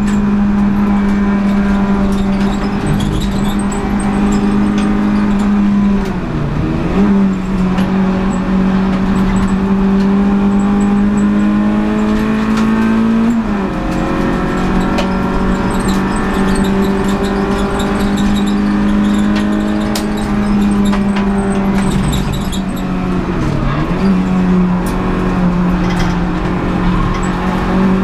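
Renault Clio 182's 2.0-litre four-cylinder engine racing at high revs, heard from inside the stripped race car's cabin. The engine note holds mostly steady, dips and recovers briefly about six and twenty-three seconds in, and climbs slowly then drops sharply about thirteen seconds in.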